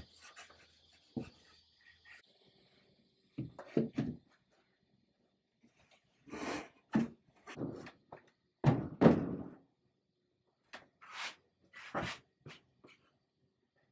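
Irregular knocks and thumps of a wooden chair being handled: the upholstered drop-in seat pushed down into its frame and pressed in place, with hands brushing over the fabric. The heaviest thump comes about nine seconds in.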